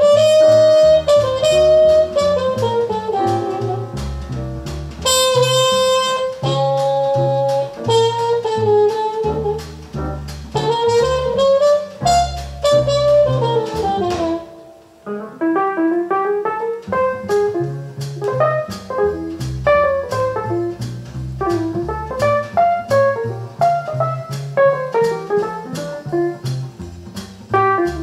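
Jazz recording playing through Elac Vela 404.2 bookshelf loudspeakers in a room: a horn carries a gliding melody over walking bass notes and steady cymbal ticks, with a short quiet gap about halfway through.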